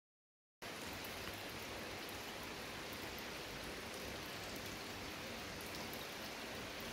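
Steady, even rushing hiss of the tunnel ambience on an underground railway platform. It cuts in abruptly after a split second of dead silence.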